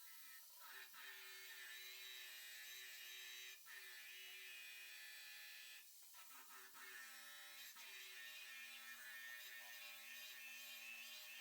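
Faint, steady whine of a small electric power tool motor, running in three spells with two short stops.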